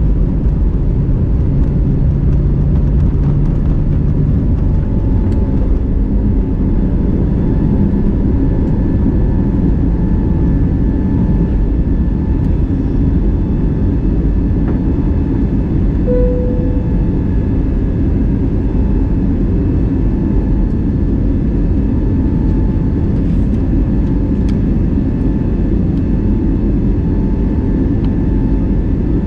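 Steady cabin noise inside an Airbus A320neo airliner in flight: a continuous low engine and airflow rumble with faint steady hums. A short single tone sounds about halfway through.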